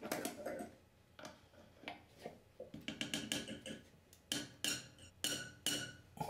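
Wrenches clinking against a metal compression nut and valve body as the nut is tightened clockwise onto a toilet shutoff valve. An irregular series of sharp metallic clicks, each ringing briefly, coming closer together in the second half.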